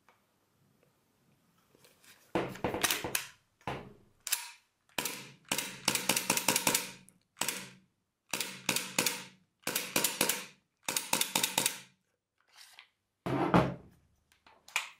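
Sharp plastic-and-metal clicks and clacks from an APS Roni pistol-carbine conversion kit being handled and worked, in a string of short bursts that start about two seconds in, with a brief lull near twelve seconds.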